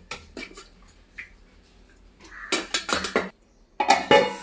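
A metal spoon clinking and scraping against a metal pot as masala is stirred into beef. A few light clinks come first, then two louder bouts of clattering and scraping, about two and a half seconds in and again near the end.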